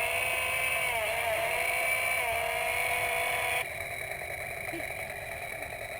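Battery-powered toy chainsaw buzzing steadily, its pitch dipping slightly a couple of times, then cutting off suddenly a little past halfway.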